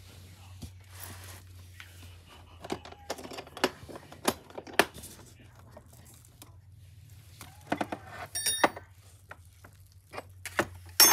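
Handling of a hard plastic-and-aluminium tool case in bubble wrap: plastic wrap rustling, then a run of sharp clicks and knocks as the case is worked open, with metal latches clicking and ringing briefly about eight seconds in and a loud clatter near the end as the lid is handled.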